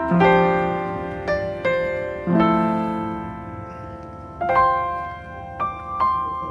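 Background piano music: slow notes and chords, each struck and left to fade away.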